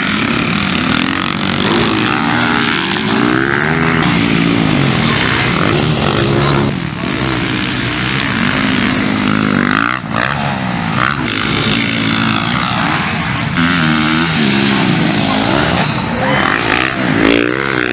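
Motocross dirt bike engines racing on a dirt track, revving up through the gears and dropping back again and again as riders accelerate out of turns and off jumps.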